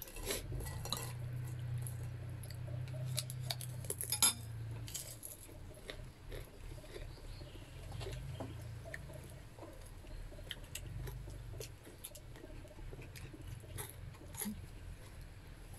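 Tableware clinking: a metal spoon knocking against ceramic bowls and plates, with a cluster of sharp clinks in the first few seconds and scattered ones after. A low steady hum underlies the first five seconds and returns briefly later.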